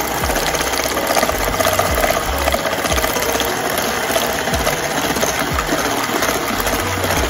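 Electric hand mixer running steadily, its beaters whipping instant pudding and milk as it thickens.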